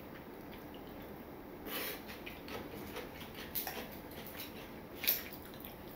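Quiet eating sounds: chewing a mouthful of lettuce salad, with a few soft clicks of a metal fork against a ceramic bowl, the sharpest about five seconds in.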